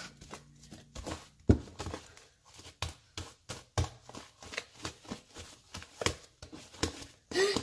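Fluffy slime being kneaded and squeezed by hand, making irregular wet squishes, pops and slaps, a few of them sharper smacks.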